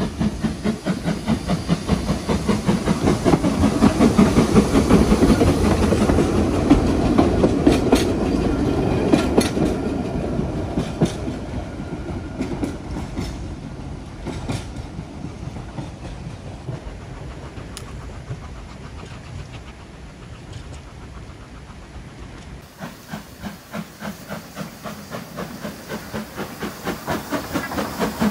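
Isle of Man Railway narrow-gauge steam train working past, its rhythmic exhaust beats growing to a peak a few seconds in and then fading, with wheels clicking over the rail joints. After an abrupt change, rhythmic beats build again near the end.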